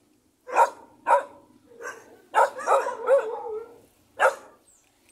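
A dog barking about half a dozen times in short, sharp barks, with a quicker run of barks around the middle.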